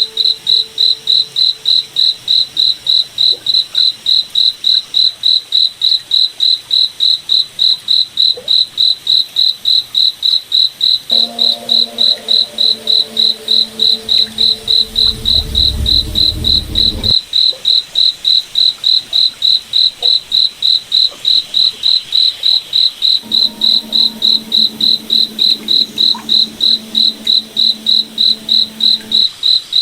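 Crickets chirping steadily in an even, high-pitched pulse, about three chirps a second. A low hum comes in twice, and a low rumble swells about halfway through and cuts off abruptly.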